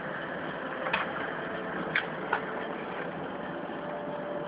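Steady background noise broken by three sharp clicks, about one second, two seconds and two and a half seconds in.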